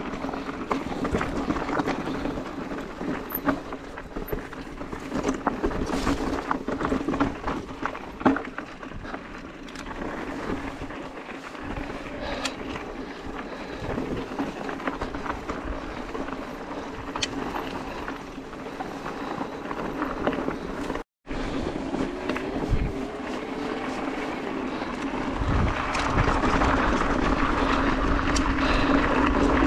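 Specialized Turbo Levo electric mountain bike riding downhill over a stony dirt singletrack: tyres crunching on loose stones and the bike rattling, with frequent small knocks and clicks over a steady hum. The sound cuts out for a moment about two-thirds through, and it gets louder over the last few seconds.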